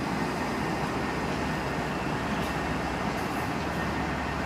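MBTA commuter rail diesel locomotive, an HSP46, running with a steady engine noise and a faint steady high whine.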